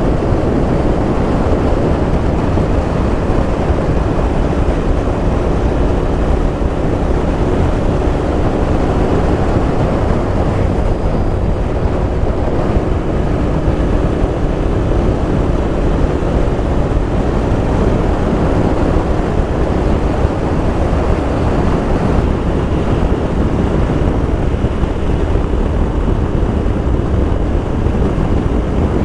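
Steady wind rush buffeting the helmet-cam microphone at road speed, with the Royal Enfield Interceptor 650's parallel-twin engine running evenly underneath at a constant cruise.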